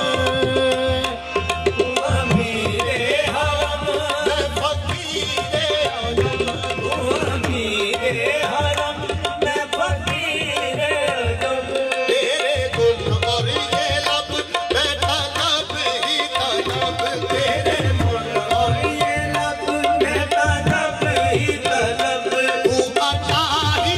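Qawwali: men's voices singing with wavering, ornamented lines over harmonium, with tabla drums keeping a steady beat.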